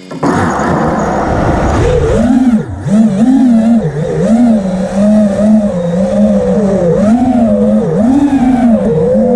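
FPV quadcopter's electric motors and propellers spooling up sharply just after the start, then a loud whine whose pitch dips and swings up and down again and again as the throttle changes in flight.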